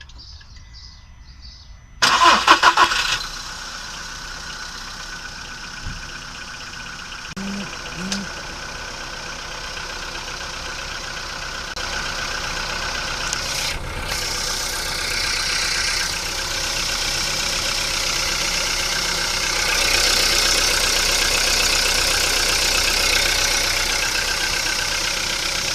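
VW Polo Sedan petrol engine cranked by the starter and catching about two seconds in, then idling. This is a cold start after two days of standing, the first seconds in which its hydraulic lifters tap. The sound grows louder around twelve and again around twenty seconds in.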